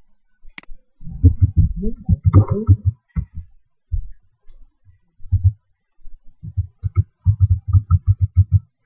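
Keyboard keys being typed on in two quick runs of short, dull thumps, the second run near the end, with a single sharp click, like a mouse click, just before the first.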